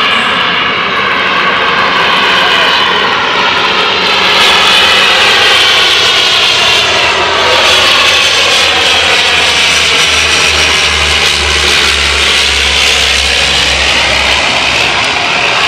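De Havilland Canada Dash 8 turboprop airliner landing and passing close by: its twin turboprop engines and propellers drone loudly and steadily, with a sweeping, phasing tone as the aircraft goes past.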